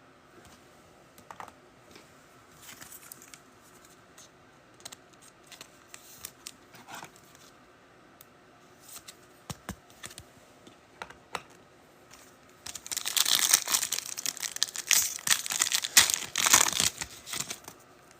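Scattered light clicks and rustles of cards and packaging being handled. Then, about 13 seconds in, a trading-card pack wrapper is torn open and crinkled for several seconds.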